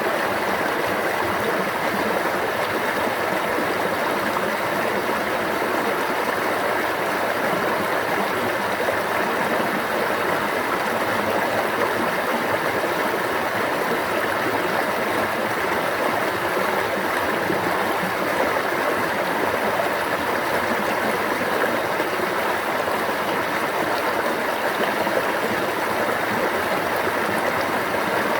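Water flowing in a stream, a steady, even rush that doesn't change.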